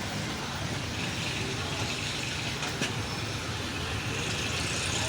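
Honda CD 70 motorcycle engine running steadily with its exhaust, a low pulsing rumble; a brief click about three seconds in.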